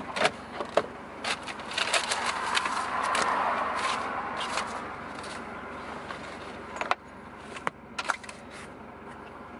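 Clicks, taps and rustling as papers and a licence are hunted out inside a parked car. Under them the hiss of a passing car swells and fades away, loudest about three seconds in.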